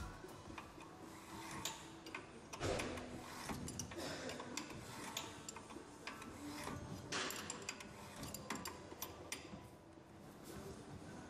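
Light scattered metal clicks, with brief scraping rubs about three seconds in and again about seven seconds in, as a drill chuck clamped in a bench vise is tightened by hand with a thin metal tool.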